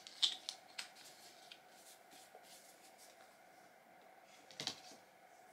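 Small clicks and handling of a plastic lotion tube as it is opened and squeezed onto the hand, mostly in the first second. Just after four and a half seconds, one short sniff as the lotion on the hand is smelled.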